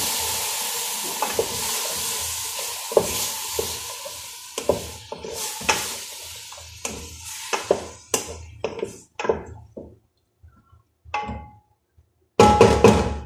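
Food in a metal pot on a gas stove sizzling with a steady hiss that fades away over several seconds, while a spatula stirs and scrapes against the pot in quick repeated strokes. The stirring thins out, and a short loud burst comes near the end.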